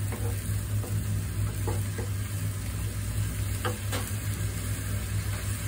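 Tomato and fenugreek-leaf masala sizzling in a nonstick pan while a wooden spatula stirs it, with a few short scrapes of the spatula against the pan. A steady low hum runs underneath.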